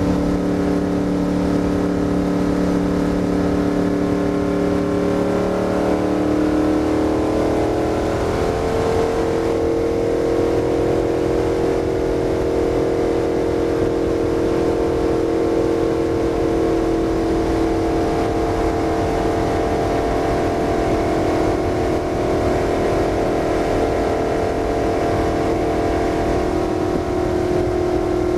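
Stock car's V8 engine heard from inside the cockpit at speed, a steady drone whose pitch climbs between about six and nine seconds in as the car accelerates, then holds high and even.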